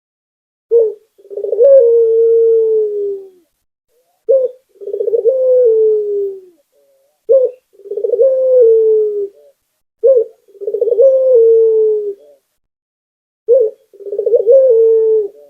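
A puter lokal dove (domestic Barbary dove) cooing five times, about every three seconds: each call a short note followed by a longer rolling coo that falls slightly in pitch.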